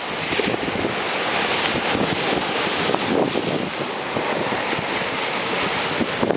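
Ocean surf breaking and washing in a steady hiss that swells and eases, with wind buffeting the microphone.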